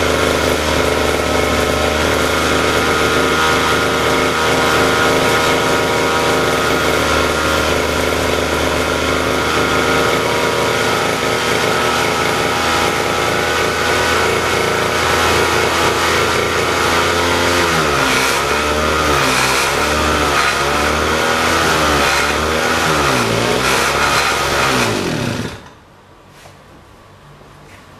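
Small petrol lawn-mower engine running steadily, then surging and wavering in pitch for several seconds as its test tube of fuel runs dry, and cutting out abruptly near the end.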